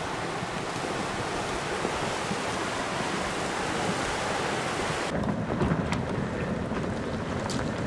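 Flash flood of muddy water and brush debris rushing down a desert wash, a steady rush. About five seconds in it changes abruptly to a deeper rumble of a debris-flow front of rocks and brush moving down a dry wash, with scattered sharp clicks and knocks.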